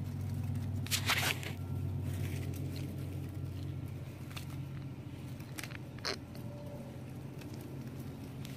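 Toy monster truck pushed by hand over dry dirt and grit, its wheels scraping and crunching, with a few sharper scrapes about a second in and near six seconds. A steady low hum runs underneath.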